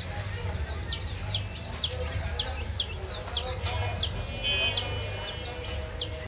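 Baby chicks peeping: a steady run of short, high, falling cheeps, about two a second, over a low steady hum.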